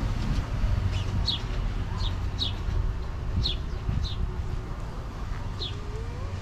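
A small bird calling: short, high chirps, each falling in pitch, repeated irregularly about once a second, over a steady low rumble.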